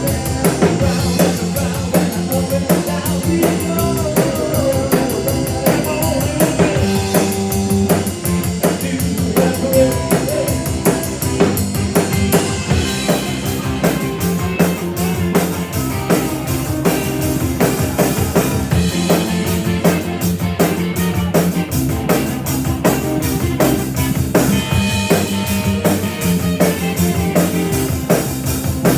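Live rock and roll band playing an instrumental break with no vocals: a drum kit keeps a fast, even beat under bass and a wavering lead melody.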